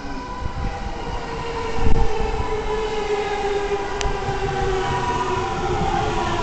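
E231 series electric train arriving and slowing: its traction motors give a whine of several tones that slowly falls in pitch, over the rumble of wheels on rail. There is a burst of low rumble about two seconds in and a single sharp click about four seconds in.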